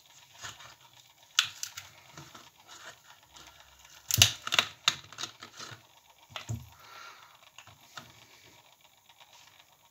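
A one-litre juice carton being opened by hand, its plastic cap and seal giving a series of small irregular clicks and crackles, the loudest cluster about four seconds in.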